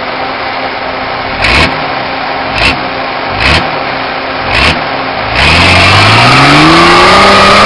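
Nissan Patrol GR Y60's 4.2-litre straight-six diesel working under load as the truck crawls over a steep obstacle. Four short loud bursts come in the first five seconds, then the engine revs long and hard, its pitch climbing and holding near the end.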